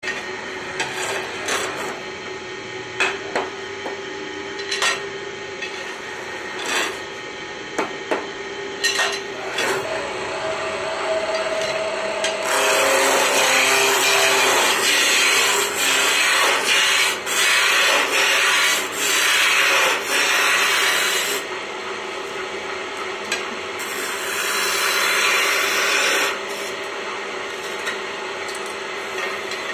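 Wood lathe running with a steady hum while a turning tool cuts the spinning wooden blank, giving a loud rasping hiss in one long stretch about midway and a shorter one later, as the blank is shaped into a cone. Scattered sharp knocks come in the first third.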